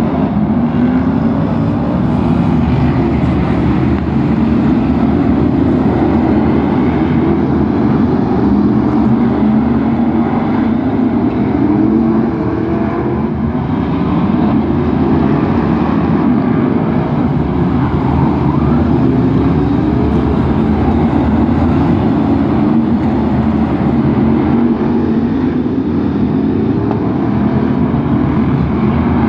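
Several F1 stock cars' V8 engines racing round an oval, a loud continuous din with the engine notes repeatedly rising and falling as the cars rev up and pass.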